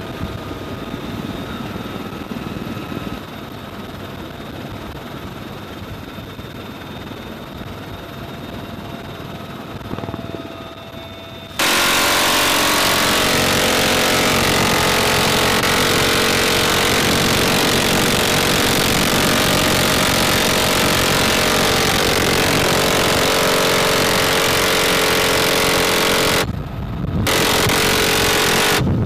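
Bell UH-1Y Venom helicopter in flight: a steady turbine whine over rotor noise, then about 12 seconds in a much louder harsh continuous noise cuts in abruptly. It runs for about 15 seconds, breaks off briefly near the end, resumes, and stops just before the end.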